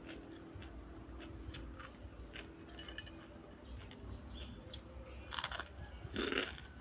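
Close-up crunchy chewing of crispy deep-fried duck intestines: a run of small crackling crunches, with two louder bites, one about five seconds in and another just after six.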